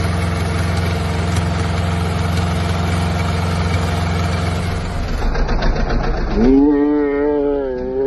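Old Yanmar diesel tractor engine idling steadily. About five seconds in it runs unevenly under load as the tractor moves onto the loading ramps. Near the end a person's long drawn-out shout rises over the engine and holds for about two seconds.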